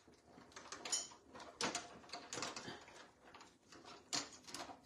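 Stampin' Up! Cut & Emboss die-cutting machine being loaded and run off camera to cut card stock with a metal die: an irregular series of faint clicks, knocks and plastic rubbing.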